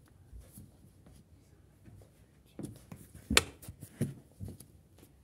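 A few scattered knocks and taps from a person shifting on a hard floor while handling a cloth doll, with one sharp click about three and a half seconds in. The first couple of seconds are nearly quiet.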